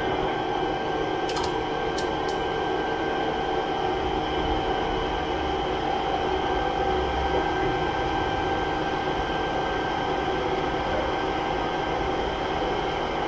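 A steady machine hum with a faint whine, and a few light clicks about one and a half to two and a half seconds in.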